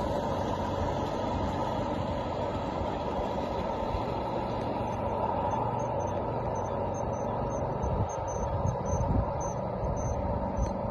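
Gauge 1 model freight train running past, a steady rolling noise of its wheels on the rails. About halfway in a regular light clicking starts, and near the end there are a few low bumps.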